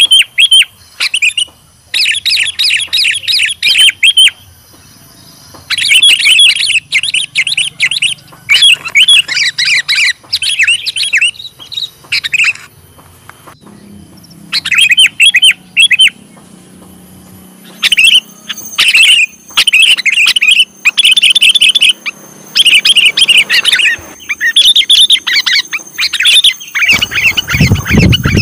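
Sooty-headed bulbul (kutilang) calling in repeated bouts of quick chirping notes, each bout a second or two long with short pauses between. This is the call the title names as the kutilang lure call. Near the end a low rumble comes in under the calls.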